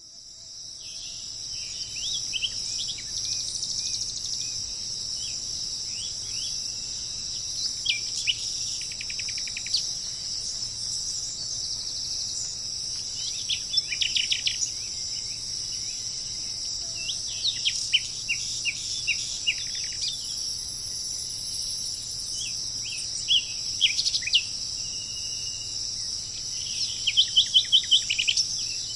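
Steady high-pitched insect chorus, cricket-like, with songbirds chirping over it and now and then giving short rapid trills, the loudest near the end. It fades in at the start.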